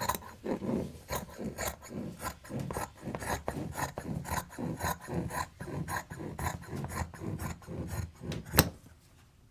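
Quilting fabric being worked by hand at close range: repeated scratchy, rubbing strokes about two or three a second, ending with one sharp click about eight and a half seconds in.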